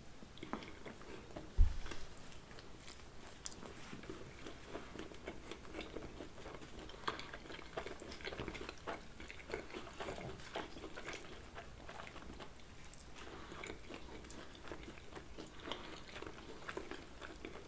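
Two people chewing pizza close to the microphone: soft, faint wet chewing with small mouth clicks. A single low thump sounds about a second and a half in.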